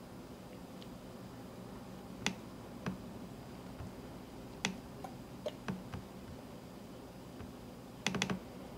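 Scattered sharp clicks from a laptop's keys or trackpad, a few single ones spaced out and a quick run of several near the end, over faint room tone.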